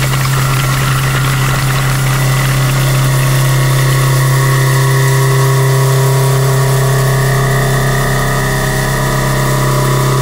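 Large Ibarmia CNC machining center running steadily, with a strong low hum and several steady higher tones.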